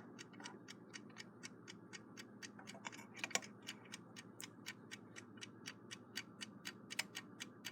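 Westclox Big Ben Chime Alarm Style 4 movement ticking: faint, rapid, evenly spaced ticks, several a second, from the freshly rebuilt movement running. A slightly louder knock comes a little over three seconds in.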